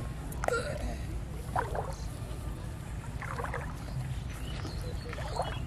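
Pond water splashing in four short splashes spread a second or two apart, over a steady low rumble.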